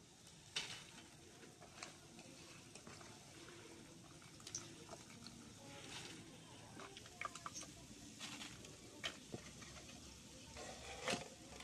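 Wet, soaked puffed rice scooped by hand from an aluminium pot and dropped into a plastic colander: faint, scattered soft wet pats and taps.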